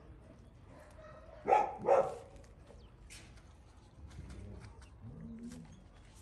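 A dog barking twice in quick succession about a second and a half in, followed by faint clicks and a low wavering sound.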